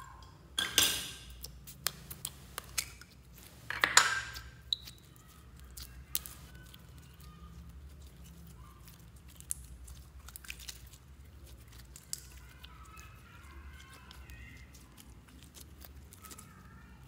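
Glossy slime being pulled from its tub and squeezed between the fingers: wet squelches, the loudest about a second in and again about four seconds in, then a steady run of small crackles and pops as it is kneaded.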